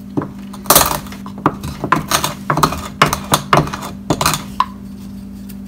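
Wooden pestle pounding and crushing allspice berries and a clove in a small wooden mortar: a quick, irregular run of sharp wooden knocks that stops a little over four seconds in.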